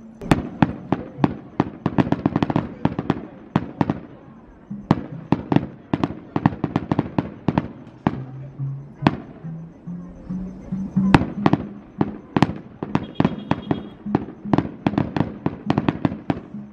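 Aerial fireworks shells bursting: a rapid, dense string of sharp bangs and crackles, thinning for a moment about four seconds in and heaviest past the middle. A few low held notes step upward about eight seconds in.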